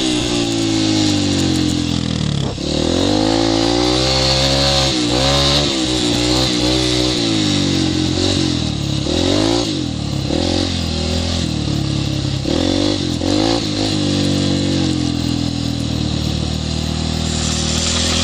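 Dirt bike engine under load on a steep dirt hill climb, its revs dropping sharply and climbing back up every few seconds as the throttle is rolled off and opened again, then running more evenly near the end.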